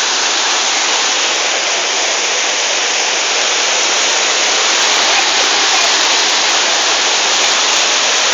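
Waterfall, a steady loud rush of falling water with no breaks.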